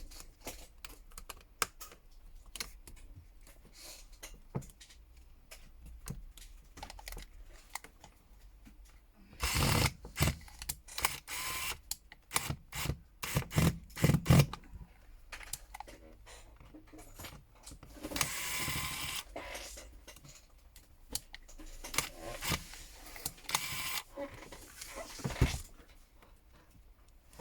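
Small clicks and taps of a smartphone's parts and a small hand tool being handled, with a few louder scraping or rustling stretches partway through.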